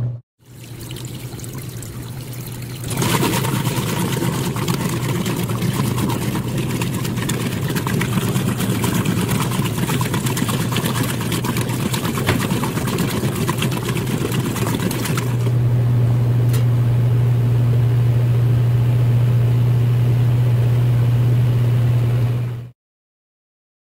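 Maytag top-load washing machine. About three seconds in comes a loud, even sloshing of water and clothes as the agitator churns a full tub. About fifteen seconds in this gives way to a steady low motor hum as the drum spins, and the sound cuts off abruptly near the end.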